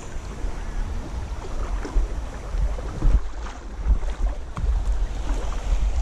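Wind rumbling and buffeting on the microphone over the rush of a flowing, flood-swollen stream, with a few faint ticks and splashes.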